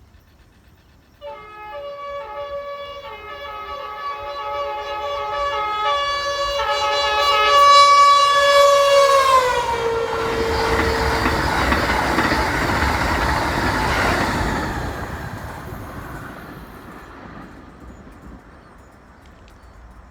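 Amtrak Avelia Liberty trainset sounding its horn, several tones at once, in a run of short and long blasts. The pitch drops about nine to ten seconds in as the train passes. Then comes the loud rushing noise of the trainset going by, fading away toward the end.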